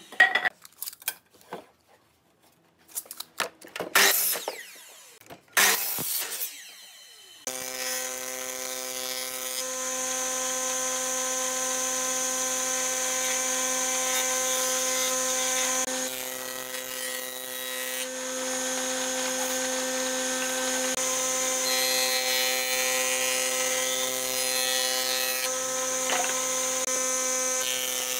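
A few short, sharp bursts in the first seconds. Then an old combination jointer-planer sets in about seven seconds in with a steady hum and whine of motor and cutterhead. It swells a little as boards are fed over it.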